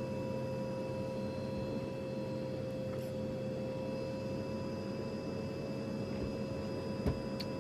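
Steady aircraft cabin noise inside a business jet: an even low rumble with a steady whine running through it, and a single soft click about seven seconds in.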